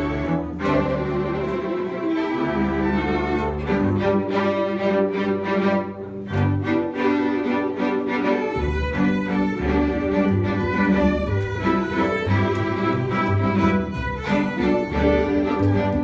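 Small string ensemble playing together: several violins over a bowed cello and double bass line, the low notes moving every half second or so.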